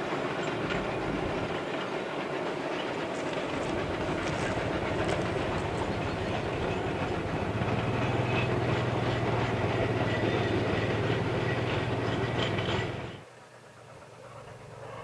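Cumbres & Toltec narrow-gauge freight train behind a steam locomotive rolling along at a distance, wheels clattering on the rails. A low steady hum joins about halfway through, and the sound drops off abruptly near the end.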